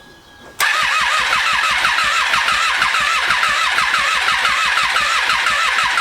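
Starter motor cranking the 2012 Triumph Street Triple 675R's three-cylinder engine without it firing: a no-start. It cuts in suddenly about half a second in, with a whine that rises and falls a few times a second.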